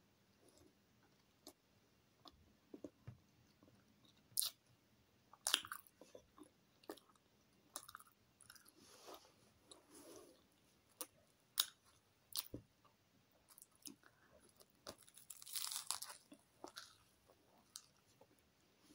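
A person biting and chewing a crusty chicken-and-lettuce baguette close to the microphone: scattered crunches and sharp mouth clicks, with a longer run of crunching about three-quarters of the way through.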